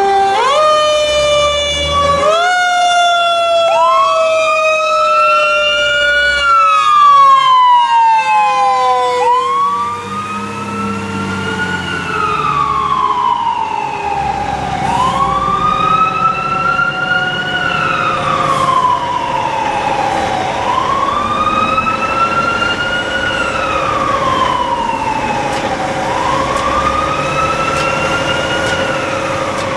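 Fire truck sirens on an emergency run: an electronic siren wailing, climbing and falling about every five and a half seconds. Over the first nine seconds a second siren jumps up in quick steps and then slowly winds down, in the manner of a mechanical siren spinning down, and it is loudest there.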